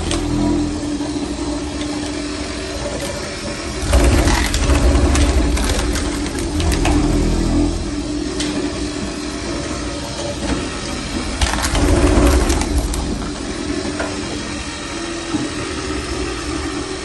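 ROLL-STRIPPER RO-2 floor stripper running with a steady hum as its blade prys up glued three-layer parquet, the wood cracking and splintering. The breaking wood gets louder in three stretches: about four seconds in, around seven seconds, and about twelve seconds in.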